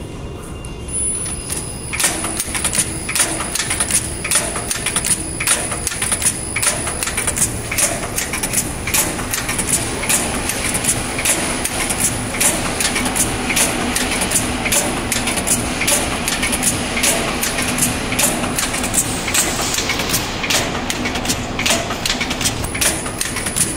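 Automatic shoelace tipping machine running: about two seconds in, its clamp head and tipping mechanism start a rhythmic clacking at about two strokes a second, over a steady high whine.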